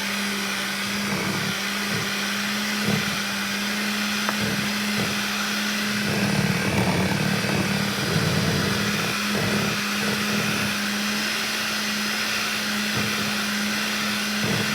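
Electric mixer running steadily with a constant hum, whipping a blend of raw butters and oils into whipped body butter, with a few short knocks now and then.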